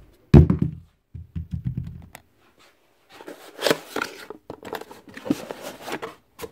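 A thud about half a second in, with low knocking from handling on the workbench, then a cardboard box being opened and rummaged, its cardboard crinkling and scraping irregularly for about three seconds.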